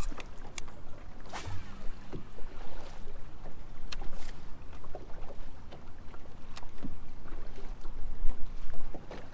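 Water lapping and slapping against the hull of a bass boat, over a low steady rumble, with scattered small clicks and knocks throughout.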